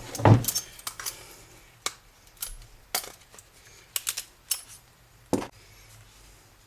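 Scattered sharp metallic clicks and knocks of hand tools and small metal parts as a vacuum cleaner's motor is taken apart: a heavier thump at the start, then about a dozen separate clinks.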